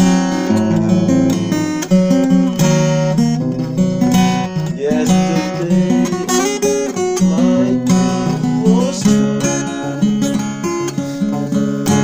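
Acoustic guitar playing strummed chords, with a few notes sliding up in pitch in the middle.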